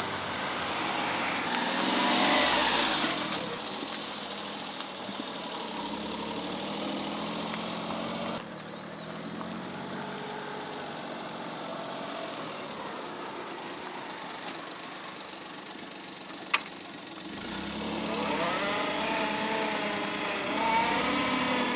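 A vehicle engine running, rising in pitch twice as it speeds up, with a single sharp click partway through.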